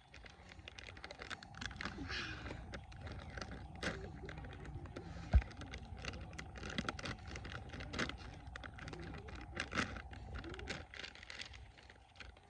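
Hands handling and opening a package: irregular clicking, tapping and crinkling, with one heavy thump about five seconds in.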